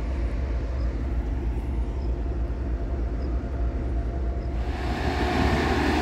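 Matisa C75-2C total ballast cleaner at work: a steady low diesel rumble, joined about four and a half seconds in by a louder, noisy mechanical clatter that keeps growing.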